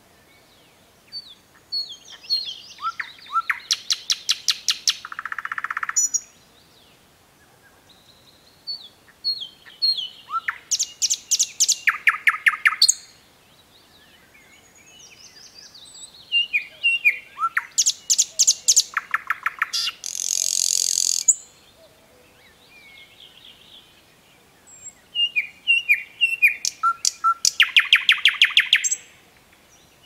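Thrush nightingale singing: four loud song phrases with short pauses between. Each phrase opens with short whistled notes and builds into a fast series of sharp clicking notes.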